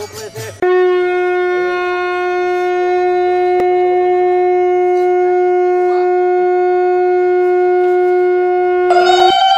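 Conch shell (shankha) blown in one long, steady note lasting about eight and a half seconds, starting about half a second in. Near the end a higher note, about an octave up, comes in and rises slightly in pitch.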